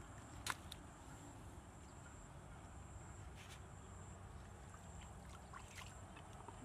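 Faint splashing and trickling of hands moving in shallow muddy water, with one sharp click about half a second in, a few fainter clicks later, and a steady thin high whine.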